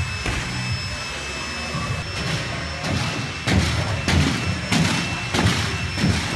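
A run of thuds from a gymnast's hands and feet striking a sprung tumble track during a tumbling pass, about one every half second from about two seconds in. A steady low hum of the hall runs underneath.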